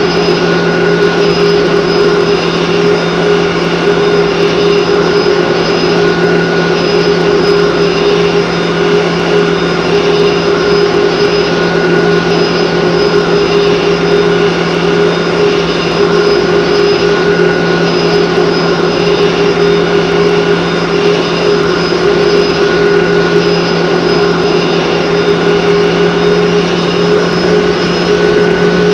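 Airbus A330 airliner's jet engines running steadily on approach: an even rush of engine and air noise with several steady humming tones, and no touchdown bump.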